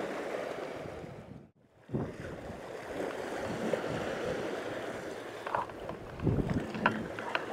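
Choppy sea washing against a rocky shore, with strong wind buffeting the microphone. There is a short gap about a second and a half in, and a low thump and a few light clicks near the end.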